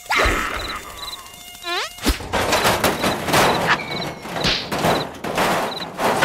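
Cartoon mosquito buzzing as it darts about, starting suddenly, with a quick rising glide just before two seconds in.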